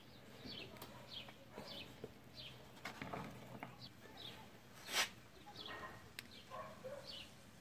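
Light metal clicks and taps as a screwdriver pries a coil spring into the Power Trax No-Slip locker in the differential carrier, the sharpest about five seconds in. A small bird chirps over it with short falling chirps every second or so.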